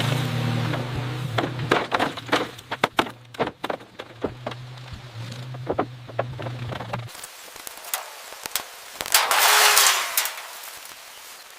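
A quick, irregular run of sharp knocks and clicks over a low steady hum; the hum stops about seven seconds in, and a brief hissing rush follows about two seconds later.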